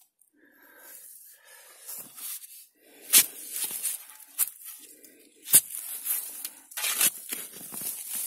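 A spade digging into garden soil to lift potatoes: scraping and crunching as the earth is cut and turned, with a few sharp knocks of the blade, the loudest about three and five and a half seconds in.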